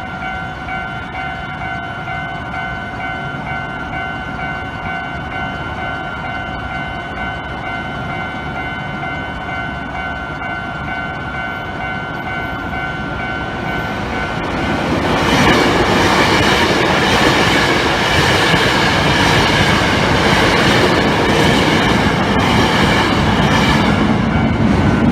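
Japanese level crossing warning bell ringing with a steady ding-ding tone. About fifteen seconds in, a train passes over the crossing, much louder, with a rhythm of wheel knocks that mostly drowns the bell.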